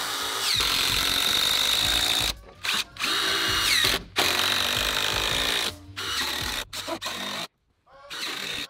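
Cordless drill-driver driving screws into a pressure-treated wood post, in several runs of one to two seconds with short pauses between them. The motor whine rises as each run spins up.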